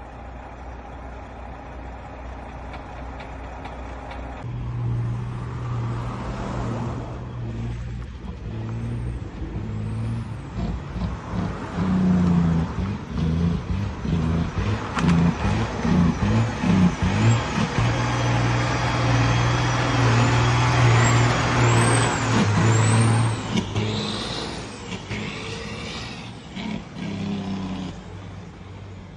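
Detroit Diesel Series 60 12.7-litre six-cylinder truck engine running. About four seconds in it gets louder and stays loud through the middle before easing near the end, its low drone uneven and breaking up irregularly, the sign of the engine misfiring.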